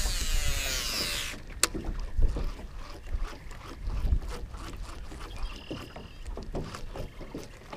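Baitcasting reel whirring as a lure is cast, the spool's whine falling in pitch for about a second and then stopping with a click. Then a low steady rumble with scattered small ticks and knocks while the lure is fished back.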